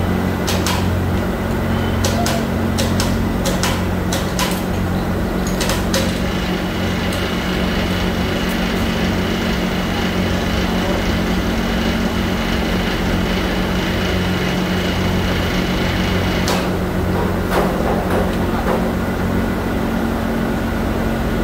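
Steady low hum of factory machinery, with a series of sharp metallic clicks and knocks in the first six seconds and a few more about two-thirds of the way through. A thin high whine sounds from about six seconds in until a click cuts it off.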